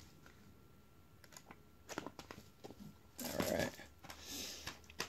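Handling of a paper booklet: soft page flips and light clicks, with a louder paper rustle about three seconds in.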